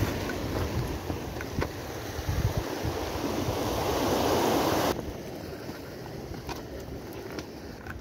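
Ocean surf surging and washing through a rocky gully, with wind buffeting the microphone. The rush of water swells for about five seconds, then cuts off suddenly, leaving a quieter low wind rumble.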